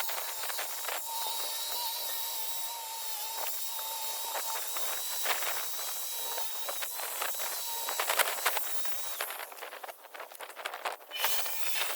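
Steady hiss with frequent clicks and scrapes; the hiss drops away for about two seconds near the end, then comes back.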